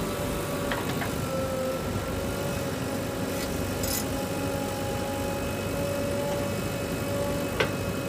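Tractor diesel engines running steadily, with a few faint clicks.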